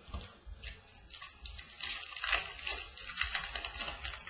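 Baseball trading cards being handled and flipped through: a dense run of rustling and light clicking as the cards slide over one another and are flicked aside.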